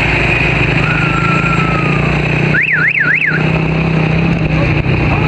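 Off-road vehicle engine running steadily. About two and a half seconds in there is a brief siren-like warble: three quick up-and-down sweeps in pitch.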